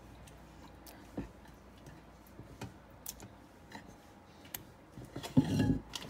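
Quiet kitchen with a few faint scattered clicks and taps, then a louder knock and handling noise a little after five seconds in.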